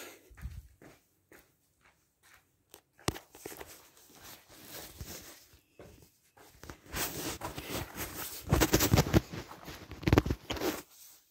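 Footsteps and rustling: scattered light steps at first, then from about seven seconds in a loud, dense crunching and rustling with a low rumble, which stops abruptly near the end.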